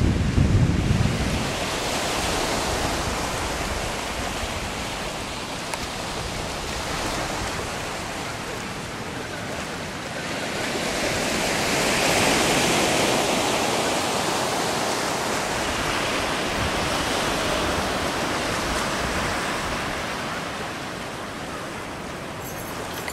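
Sea surf breaking and washing up a sandy beach, swelling and ebbing in slow surges, with wind rumbling on the microphone in the first second.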